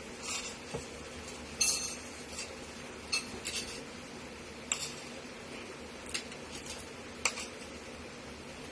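Metal fork scraping and clinking against a plate while rice and pork are scooped up, about seven short scrapes and clinks at irregular intervals, the loudest about two seconds in. A low steady hum runs underneath.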